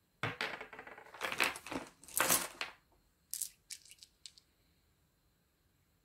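Small gemstone pebbles clicking and clattering against each other and the tabletop as they are picked up and gathered in a hand. A dense rattle lasts about two and a half seconds, followed by four separate light clicks.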